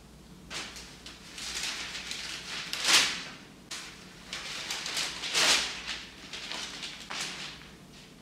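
Newspaper pages rustling as they are turned and opened out, in several separate bursts, the loudest about three seconds in and again about five and a half seconds in.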